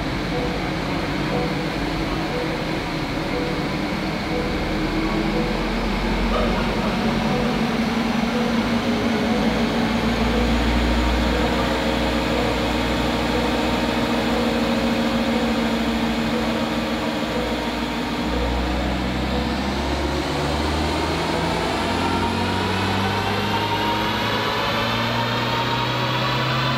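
2022 Honda Civic Si's 1.5-litre turbocharged four-cylinder, breathing through a Spoon Sports drop-in air filter, running on a chassis dyno and heard from the cabin. Its note holds steady at several levels through the gears. From about two-thirds of the way in, the revs climb steadily in a pull, with a high whine rising alongside.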